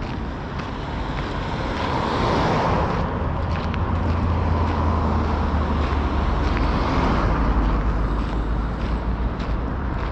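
Road traffic going by: cars passing along the road, with a steady deep rumble and two swells of tyre and engine noise, the first about two seconds in and the second past the middle.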